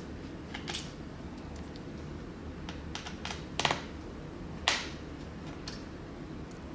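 Small precision screwdriver backing out the hard-drive screws of a Dell Inspiron 15 5000 laptop: scattered light metallic clicks and ticks of the bit and screws, with a short rattling run of clicks just past halfway and one sharper click about two-thirds through, over a steady low hum.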